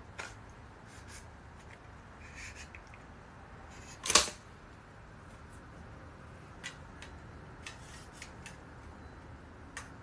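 Plastic and metal clicks of a Heibox selfie stick tripod being handled, unfolded and extended, with one louder clack about four seconds in.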